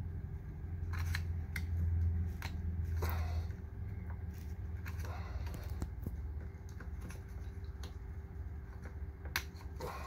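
Small scattered plastic clicks and scrapes as a microwave door interlock switch is worked loose from its plastic mounting bracket by prying out its locking tab, over a low rumble of handling in the first few seconds.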